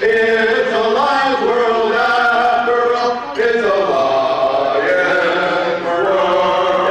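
Barbershop quartet of four men singing a cappella in close harmony, moving through held chords with brief breaks between phrases.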